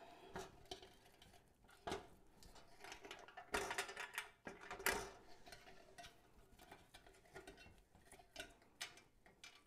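Faint scattered clicks and rustling from hands handling an artificial greenery arrangement and its wired ribbon bow, with a few louder clicks about two, three and a half, and five seconds in.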